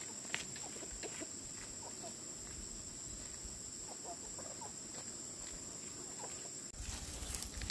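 Chickens clucking now and then in short calls, over a steady high-pitched drone.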